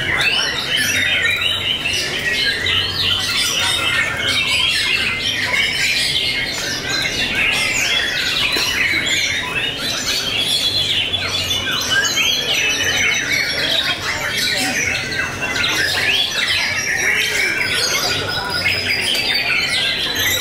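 Caged white-rumped shamas (murai batu) singing at once: a dense, unbroken stream of quick whistles, chirps and trills, with a thin high whistle held near the end.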